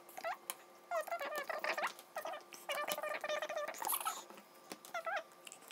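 High-pitched squeaky chattering in several short runs, with light clicks and taps of cardboard puzzle pieces being handled.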